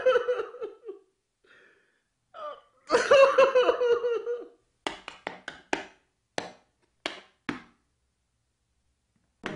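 A performer's voice shouting a sung line loudly, twice, then a quick irregular run of about ten sharp clicks or knocks over two or three seconds.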